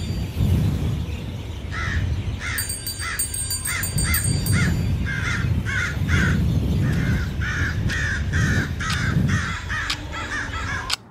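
Crows cawing over and over, a long run of short calls about two a second, over a low background rumble. The sound cuts off suddenly near the end.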